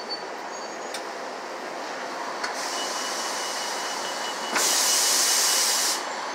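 Inside a city transit bus: steady running and road noise of the bus, then about four and a half seconds in a loud hiss of compressed air from the bus's pneumatic system for about a second and a half, cutting off sharply.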